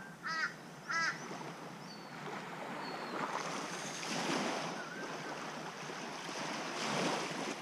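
Small waves washing in and lapping at the edge of a sandy shore, swelling and easing a couple of times. Two short harsh bird calls come near the start, and a few faint chirps follow.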